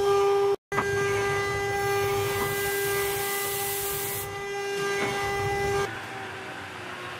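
Multi-spindle CNC router carving a wooden panel: a steady high spindle whine over the hiss of the bits cutting wood, broken once by a brief dropout just under a second in. The whine stops about six seconds in, leaving fainter noise.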